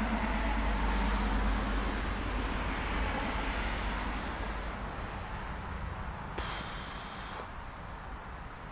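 Traffic on a nearby road: a low rumble that is loudest in the first few seconds and slowly fades. Insects chirp in a fast repeating pattern in the second half.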